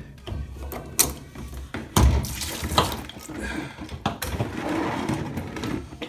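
Clicks and knocks of plastic drain hoses and clamps being handled at a washing machine's drain pump, with a heavier thump about two seconds in, then a steady hiss of water trickling out of the pump and hoses.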